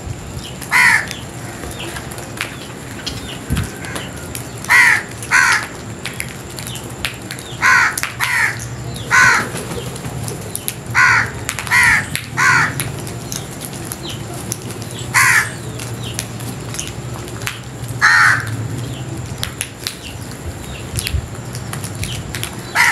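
House crows cawing: about a dozen short caws at irregular intervals, several of them coming in quick pairs or threes about half a second apart, with gaps of a few seconds between groups.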